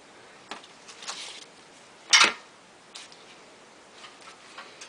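Skateboard pads being handled and put on: scattered light clicks and rustles, with one sharp clack about two seconds in.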